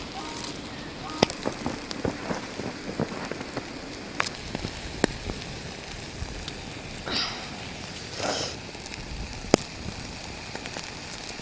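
Cooking fire crackling, with scattered sharp pops over a steady sizzling hiss; two short whooshing rushes come a little past the middle.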